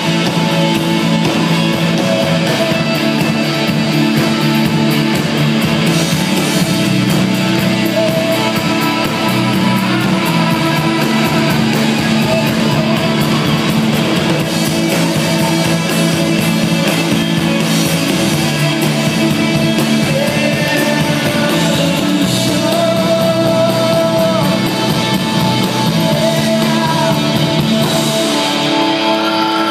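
Live rock band playing loud, with electric guitars and a singing voice over the full band.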